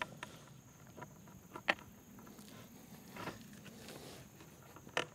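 Scattered knocks and scuffs of a wooden tripod leg being shifted and worked into stony ground. The sharpest knock comes about a second and a half in.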